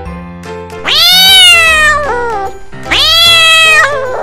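Domestic cat meowing twice, two long drawn-out meows that each rise quickly and then slide down in pitch, over light background music.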